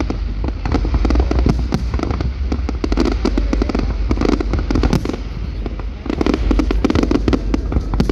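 Fireworks going off: a dense, rapid string of bangs and crackles, one on top of another, over a constant low rumble.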